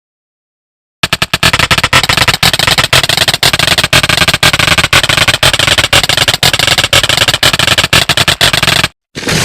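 A loud, dense barrage of rapid impacts or blasts that starts about a second in and stops abruptly near the end.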